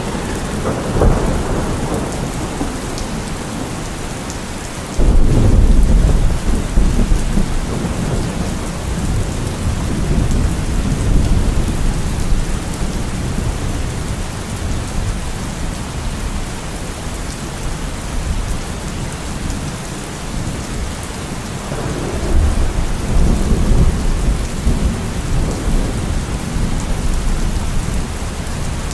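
Steady rain with thunder: a rumble just after the start, a sudden loud clap about five seconds in that rolls on as a long low rumble, and another rolling rumble a few seconds before the end.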